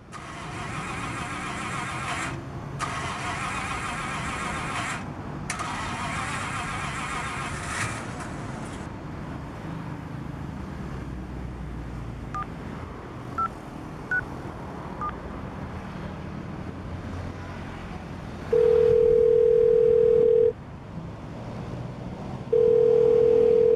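A Suzuki Swift's starter cranking in three tries of about two seconds each without the engine catching: the car has broken down. Then a low steady hum, a few soft phone key beeps, and two loud, steady phone tones of about two seconds each.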